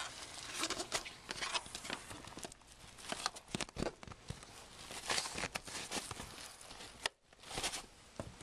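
Rustling and crinkling of a folding kayak's hull skin as a cross frame is worked into its keyhole plates, with scattered clicks and knocks of the frame parts.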